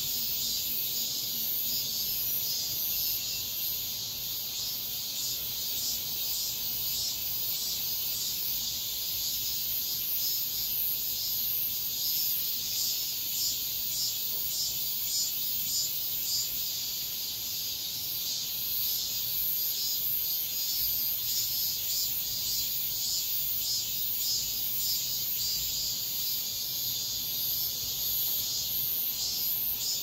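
Cicadas singing in a steady, high-pitched, densely pulsing chorus.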